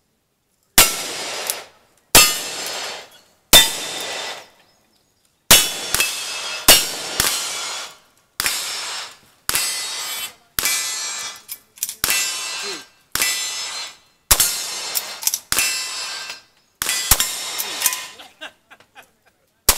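A string of gunshots from a revolver and then a rifle, roughly one a second with a few fired in quick pairs. Each crack is followed by a short metallic ring from a steel target being hit.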